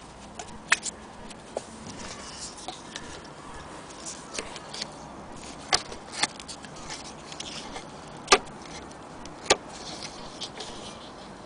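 Scattered sharp clicks and taps, about six at irregular intervals, as an antique Singer 28K hand-crank sewing machine is handled, over a faint steady hiss.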